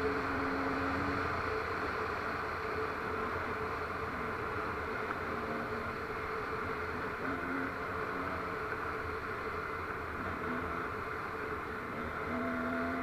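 Off-road vehicle engine running steadily while driving a dirt road, with a constant rush of wind and road noise over an onboard microphone.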